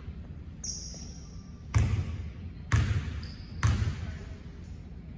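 A basketball bouncing on the court three times, about a second apart, each bounce ringing on in the hall.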